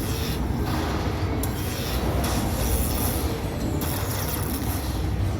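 Steady din of a casino floor among slot machines, with no distinct tune or event standing out.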